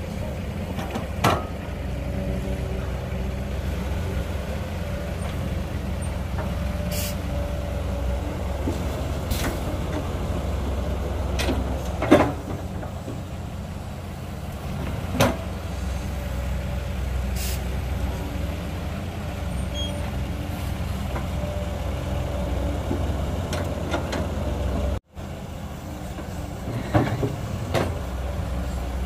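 Diesel engine of a tracked hydraulic excavator running steadily under load as it digs soil, with a handful of sharp clanks from the steel bucket striking the ground and rocks.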